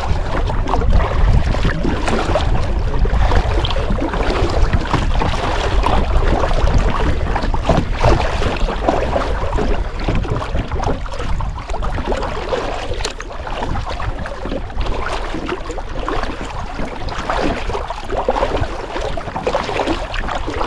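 Kayak paddling: water splashing and dripping from the paddle strokes, with wind rumbling on the microphone.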